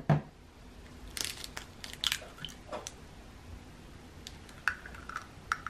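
A raw egg's shell being broken open by hand over a small glass bowl: a few faint crunching crackles and clicks, with a couple more light clicks near the end.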